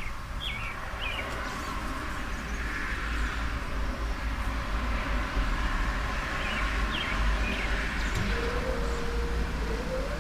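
Birds chirping a few times over a steady outdoor background hiss and a low rumble from wind on the microphone. About eight seconds in, a steady whining tone starts.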